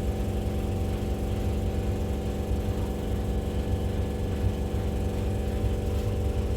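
Washing machine running with a loud, steady motor hum and low rumble.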